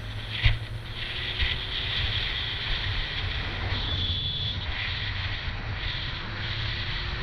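Sport motorcycle engine running steadily while cruising, with wind rushing over the helmet-camera microphone. There is one sharp knock about half a second in.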